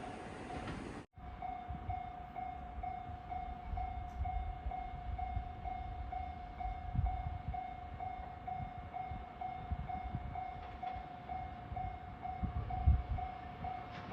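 Japanese railway level crossing's electronic warning bell ringing. It repeats a steady ding about three times every two seconds, starting about a second in, over a low rumble.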